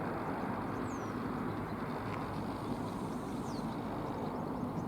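Steady outdoor background noise, an even low rumble and hiss, with two faint short high chirps, about a second in and about three and a half seconds in.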